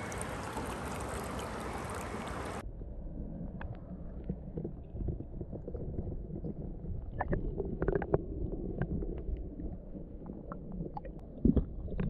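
Running creek water, first as a bright steady hiss that cuts off suddenly after about two and a half seconds, then heard underwater as a muffled low rumble of the current with scattered small clicks and knocks.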